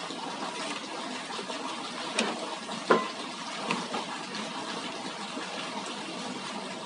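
Steady splashing of water falling from a small cascade into a pond, with a few light clinks of a spoon against a ceramic bowl a couple of seconds in.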